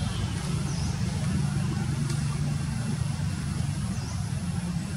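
Steady low engine rumble, with two faint short high chirps about a second in and near the end.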